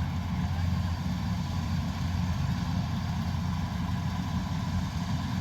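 Diesel engine of a Kubota combine harvester running steadily, with a constant low drone and no change in speed.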